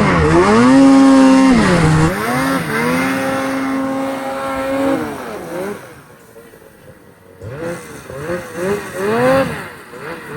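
Two-stroke 850 snowmobile engine (Ski-Doo Summit Edge) revving hard and holding high revs, with a short dip about two seconds in. It falls away and quiets about halfway through, then is blipped up and down again near the end.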